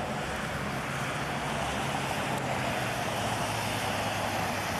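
Traffic on a wet road: a steady hiss of tyres on wet pavement with a low engine hum, swelling slightly as vehicles pass.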